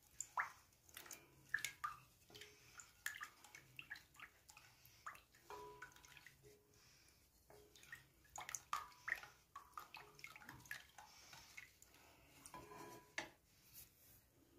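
Wooden spoon stirring a thin, watery mixture of egg, milk, warm water, yeast and salt in a bowl: faint, irregular taps and clinks of the spoon against the bowl with small splashes of liquid.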